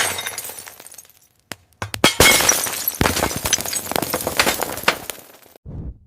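Shattering and crashing, like breaking glass and debris: a sharp crack at the start that fades out, then from about two seconds in a dense run of sharp cracks and clinks. A brief low rumble comes near the end.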